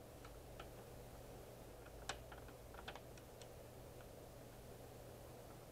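Near silence: room tone with a low hum and a few faint scattered clicks, the loudest about two seconds in.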